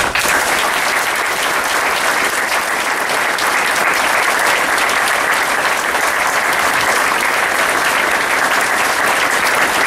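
Audience applauding: a steady round of clapping from many people that starts suddenly and holds at an even level.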